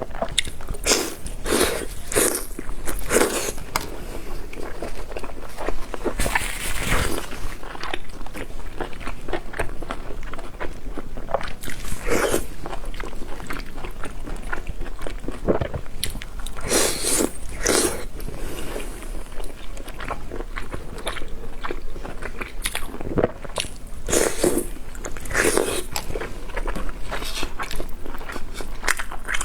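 Close-up eating sounds of a person biting and chewing marinated raw oysters in sauce: irregular wet mouth noises, about one every second.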